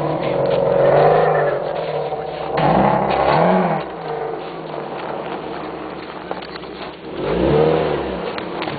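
Infiniti FX35's 3.5-litre V6 revving hard in three surges, each rising and falling in pitch: about a second in, a double rise around three seconds in, and again near the end, with a steady engine drone between.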